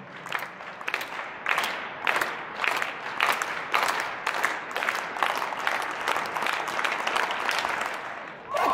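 Spectators clapping together in rhythm for a high jumper's run-up, at about two claps a second and speeding up as she runs in. A short cheer near the end, as she clears the bar, is the loudest moment.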